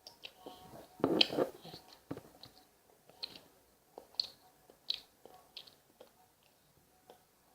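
Close-up mouth sounds of someone eating cheesecake: soft chewing and wet lip smacks. There is one louder burst about a second in, then scattered short smacks.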